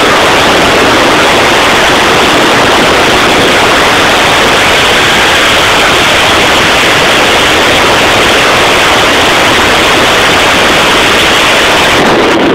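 Loud, steady rush of wind blasting the microphone of a camera held out of the window of a car moving at speed, with no break.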